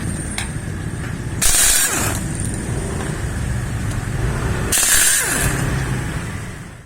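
Impact wrench fired in two short bursts of about a second each, spaced about three seconds apart. Each burst is a loud hissing rattle that winds down with a falling whine. A steady low hum from the workshop runs underneath.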